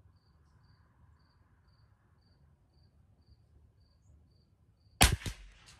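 Crickets chirping in a steady rhythm, about two chirps a second. Near the end comes a single sharp .22 LR rifle shot.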